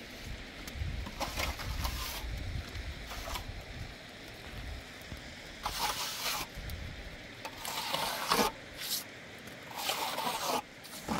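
Steel plastering trowel scraping and smoothing wet cement plaster onto a concrete block wall, in a series of about six hissing strokes of around half a second each.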